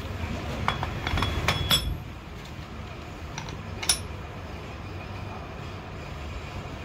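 Metal clinks of a nut and washer being worked by hand on the threaded shaft through a stack of steel gear blanks: a quick run of sharp, briefly ringing clinks in the first two seconds and one more about four seconds in, over a low steady hum.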